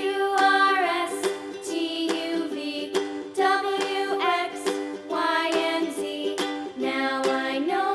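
Children's background music: a ukulele-led tune with a sung melody.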